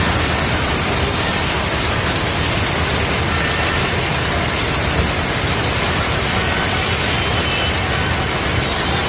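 Maize combine harvester running under load while threshing and unloading shelled corn through its auger spout into a tractor trailer. The engine and machinery make a loud, steady, even rush throughout.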